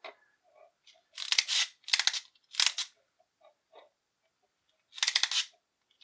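Toy blaster's wind-up knob and clockwork mechanism clicking and ratcheting in four short bursts as it is wound and released, the action feature of pulsing barrels working poorly, which the owner thinks is down to a messed-up mechanism inside.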